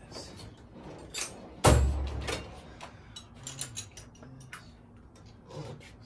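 A loud thump about two seconds in, among scattered clicks and knocks of tools and parts being handled.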